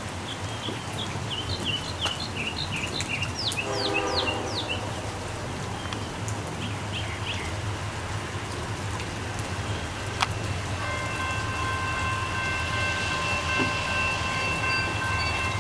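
Steady rain, with short high chirps in the first few seconds. From about eleven seconds in, a distant train horn sounds a steady chord that holds to the end.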